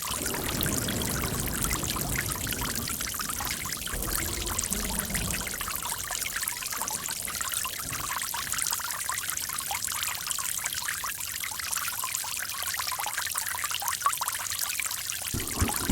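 Running water splashing and trickling steadily. A fuller, deeper rush sits under it for the first five seconds or so and returns just at the end.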